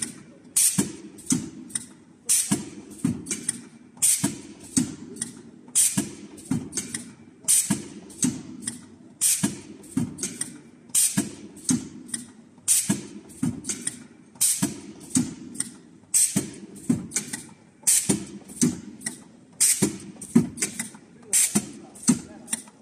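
Single-lane liquid stick pack machine running, its pneumatic sealing and cutting jaws clacking and hissing in a repeating cycle. Each cycle is a cluster of several sharp strokes and comes about every 1.7 seconds, in step with a speed of 35 sticks a minute.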